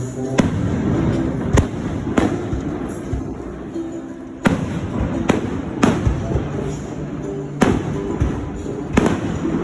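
Fireworks shells bursting, about ten sharp bangs at uneven spacing, each trailing a short echo, with music playing underneath.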